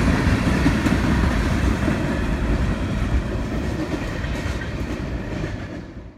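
Tank cars at the tail of a freight train rolling past on the rails with a steady low rumble and wheel noise, fading as the end of the train moves away.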